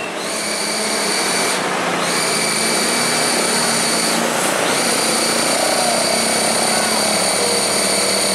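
Heavy diesel trucks labouring up a steep grade, a steady, loud engine noise with a constant high whine.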